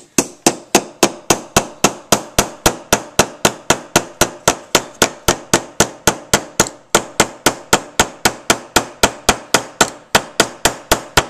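An MTE M3-2I flashlight used as a hammer, striking a 16d nail into wood in steady, rapid blows of about four a second, each a sharp metallic knock with a brief ring.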